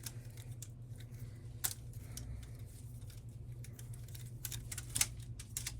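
Butterfly knife (balisong) being handled and flipped: scattered sharp metallic clicks of the handles swinging and knocking, with a quicker run of clicks near the end, over a steady low hum.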